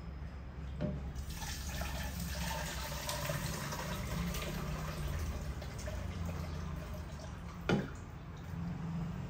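Water running from a kitchen tap into a pressure-cooker pot as chicken gizzards are rinsed in it, starting up about a second in. One sharp knock near the end.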